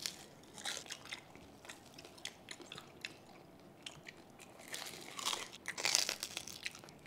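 Close-up crunching and chewing as crispy lechon kawali (deep-fried pork belly) is bitten: a few separate crunches early on, then a cluster of louder crunches, the loudest about six seconds in.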